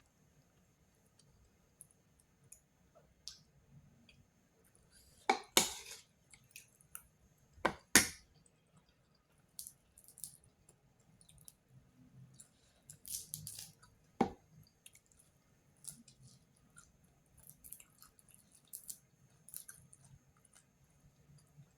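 A cat eating: small wet chewing and smacking clicks throughout, with a few louder sharp knocks or clinks, the loudest about five and a half and eight seconds in.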